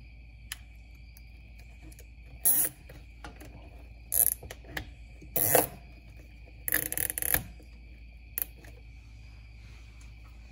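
Nylon zip tie being threaded through a bracket and pulled tight around a wiring loom: several short plastic rasps, the longest a run of quick clicks about seven seconds in. A steady faint high whine sits underneath.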